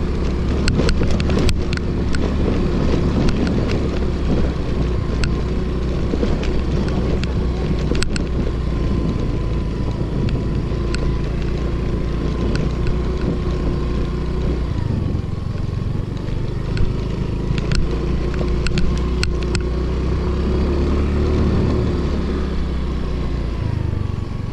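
Scooter engine running steadily while riding over a sandy track, with scattered sharp clicks and knocks. The engine note eases off a little past halfway and picks up again near the end.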